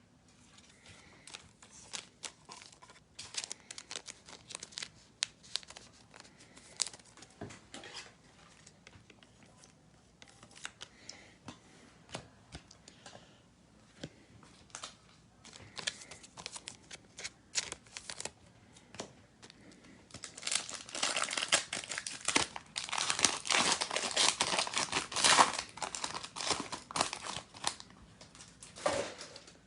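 Trading cards being handled, with scattered light clicks and rustles, then the plastic wrapper of a card pack torn open and crinkled in a louder stretch about two-thirds of the way in.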